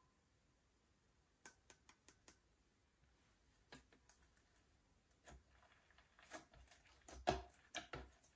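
Slime being mixed and pressed, giving a scatter of soft clicks and pops: a quick run of about five about a second and a half in, then a denser, louder cluster near the end.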